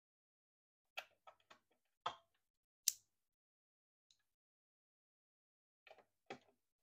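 Scattered clicks and knocks of hands and a small tool on the plastic case of a portable black-and-white CRT TV being taken apart, about seven short sharp sounds with silence between, the sharpest about three seconds in.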